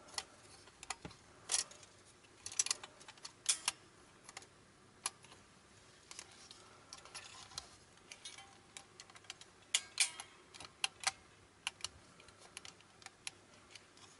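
Irregular light clicks and taps of small plastic and metal parts as a cassette deck's tape mechanism is handled and taken apart.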